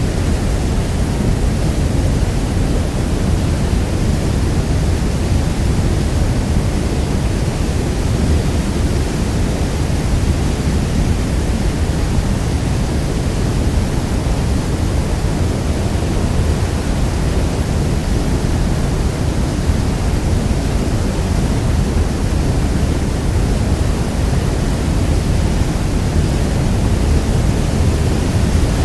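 Niagara Falls: the steady, unbroken rush of a huge waterfall, a deep even roar of falling water with no separate splashes.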